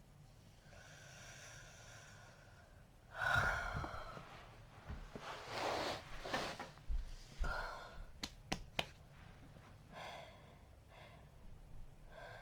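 A person hiccupping: sudden sharp gasping intakes of breath, the loudest about three seconds in, with heavy breathing between them and a few quick clicks about two-thirds of the way through.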